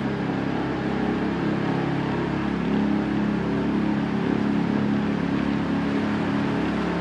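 Small open tour boat's engine running steadily with an even low hum, heard from the bow inside a sea cave.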